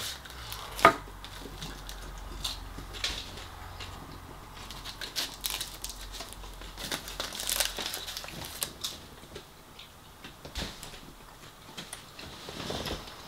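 Close-up eating sounds: chewing, and the paper wrapping of a chip-shop meal crinkling as food is picked from it, with short clicks and crackles scattered throughout and one sharper click about a second in.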